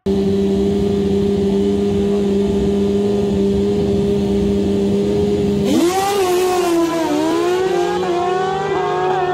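Naturally aspirated, hand-clutch drag-racing motorcycles held at a steady rev on the start line. About five and a half seconds in they launch, and the engine note climbs, drops and climbs again as they shift up through the gears.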